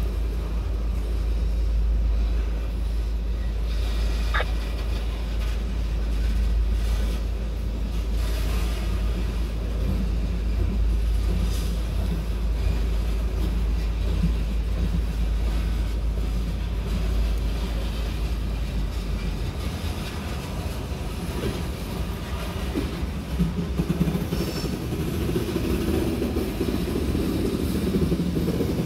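Freight train's covered hoppers and tank cars rolling past, a steady rumble of wheels on rail heard from inside a vehicle. A steady low hum underneath breaks up about two-thirds of the way through.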